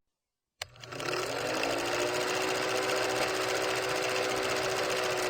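A small motor spins up with a short rising whine, then runs at a steady high speed with a fine, fast rattle.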